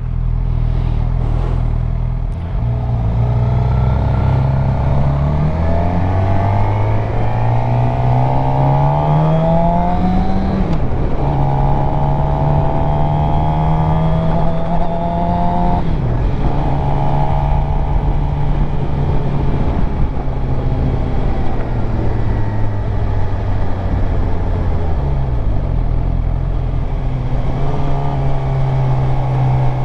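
Suzuki GSX-R750 inline-four sportbike engine under way, its note rising steadily under acceleration for several seconds, then dropping sharply at a gear change about ten seconds in. It settles to steady cruising revs, with further shifts around 16 s and 25 s, over wind noise.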